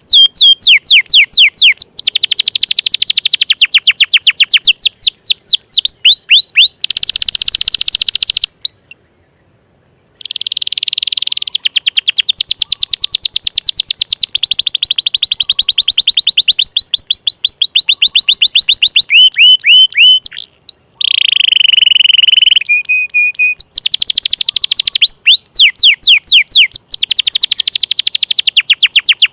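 Domestic canary singing loudly in long, fast trills of rapidly repeated high sweeping notes, several rolls in a row, with a few longer held notes and a brief break of about a second near nine seconds in.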